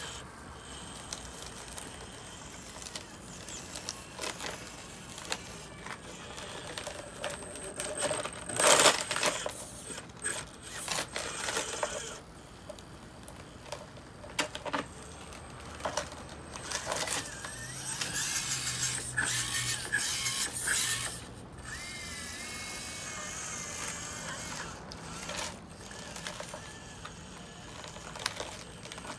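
Axial SCX24 micro crawler's small brushed electric motor and geared drivetrain whining in short bursts, the pitch rising and falling as it crawls over foam. Scattered clicks and knocks come through, the loudest about nine seconds in.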